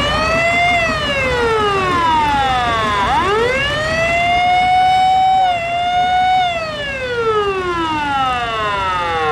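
Fire truck siren wailing: it rises in pitch, falls away, winds up again about three seconds in and holds high, then falls slowly through the rest.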